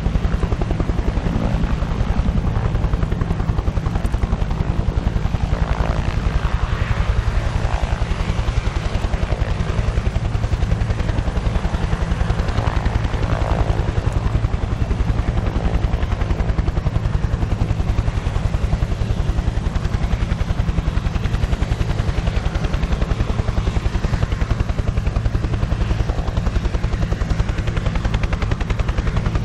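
Helicopter rotors turning: the blades beat in a fast, even rhythm over a steady low engine drone.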